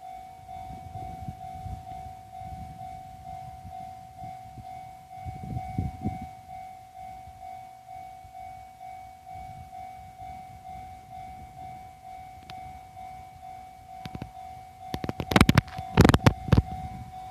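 Japanese level-crossing warning alarm ringing in a steady, evenly repeating pattern. Near the end there is a short run of loud, sharp clatter as the M250 Super Rail Cargo freight train reaches the crossing.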